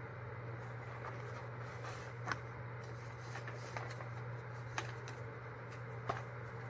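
Paper and card rustling as they are handled and pulled out of a cloth tote bag, with three sharp taps about two, five and six seconds in, the last the loudest. A steady low hum sits underneath.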